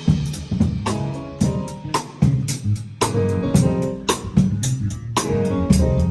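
A live band playing a song together: drum kit keeping a steady beat, with bass guitar, electric guitar and keyboard chords.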